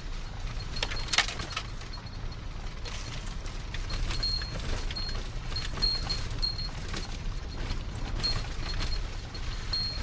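Irregular crunching and rustling steps through forest litter over a low wind rumble on the microphone, with a thin high ringing tone that comes and goes in short pulses.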